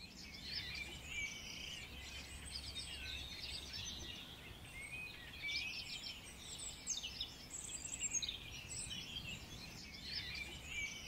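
Many small birds chirping and twittering together in a dense, continuous chorus of short high calls and trills, over a faint low rumble.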